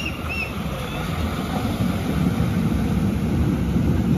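Maruti Gypsy 4x4 driving through a shallow river: its engine running under the rush and splash of water, with wind buffeting the microphone, growing gradually louder.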